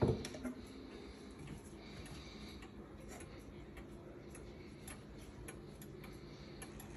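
Antique German pendulum wall clock ticking, with a knock and clatter right at the start as its case is opened and its hands are handled.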